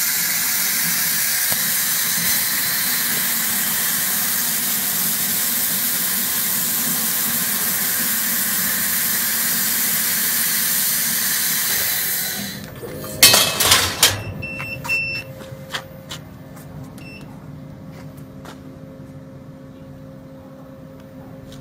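Laser cutting head's assist gas hissing steadily from the nozzle as it cuts through a rotating metal tube. The hiss cuts off about twelve seconds in, followed by a few loud clattering knocks, then a low machine hum with scattered clicks.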